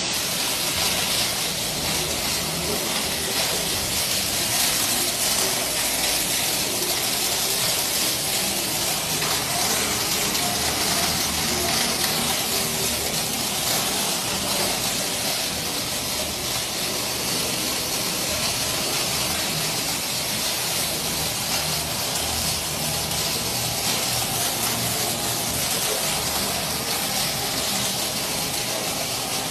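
Heavy rain falling, a dense, steady hiss.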